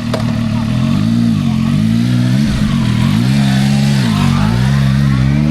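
Zontes 703T motorcycle's inline three-cylinder engine being revved in place, its pitch rising and falling a few times and climbing again near the end.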